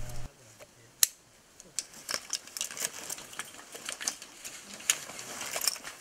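Scuba gear being handled while divers suit up: irregular light clicks, clinks and small rattles of harness clips and buckles, with one sharper click about a second in.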